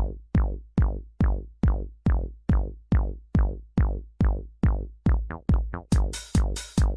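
Electronic background music with a drum-machine kick beat, a little over two beats a second. A quick roll of hits comes about five seconds in, then a bright hi-hat hiss joins each beat.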